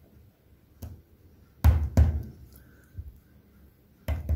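Fingers tapping and pressing jigsaw puzzle pieces down onto a tabletop: a few separate dull knocks, the loudest about one and a half seconds in, then a quick run of them near the end.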